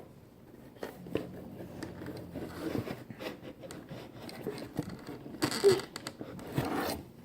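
Craft materials being handled at close range: irregular rustling, small taps and clicks, with two louder scraping rustles about five and a half and six and a half seconds in.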